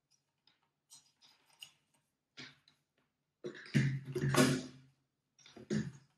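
Handling noises of a 3D-printed plastic model rocket frame with wires: scattered light clicks and rustles, then louder knocking and scraping as it is laid down on the table from about three and a half to five seconds in, and another short knock near the end.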